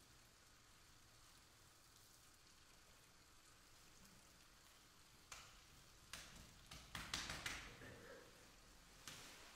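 Dry autumn leaves crackling and rustling as they are handled, played as an instrument. Quiet at first, then a few crunches about five seconds in, a busier cluster of crackles around seven seconds, and another crunch near the end.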